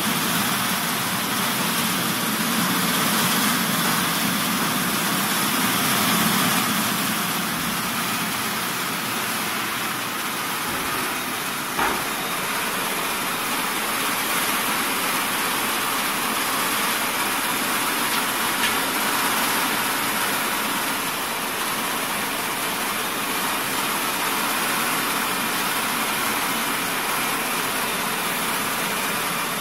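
Buckwheat hulling machine running steadily with grain passing through it: an even, dense mechanical noise. A single short knock comes about twelve seconds in.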